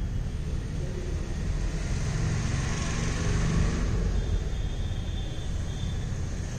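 Steady low rumble of background noise that swells for a couple of seconds in the middle, with a faint high steady tone in the second half.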